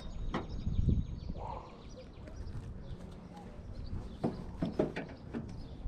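Knocks and clicks in an aluminium boat: low thumps about a second in, then a few sharp knocks and clicks near the end.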